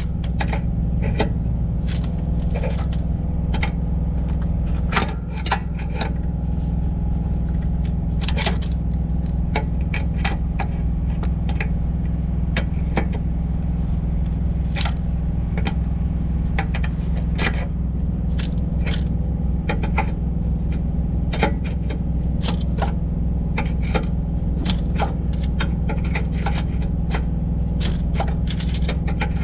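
Wrench working a nylon-insert lock nut off a truck air-spring stud: many short, irregular metallic clicks and scrapes, over the steady low drone of an idling engine.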